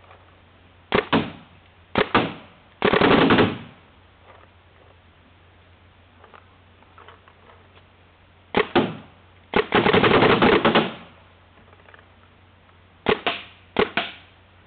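Smart Parts Ion electropneumatic paintball marker firing on compressed air in rapid strings of shots, set to ramp at 17 balls per second: two short bursts, a longer string of about a second, a pause, then short bursts, another string of about a second, and two more short bursts near the end.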